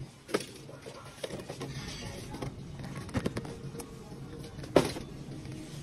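Supermarket background with soft music and faint voices, broken by a few sharp knocks from a metal shopping cart as boxed groceries are loaded into it. The loudest knock comes near the end.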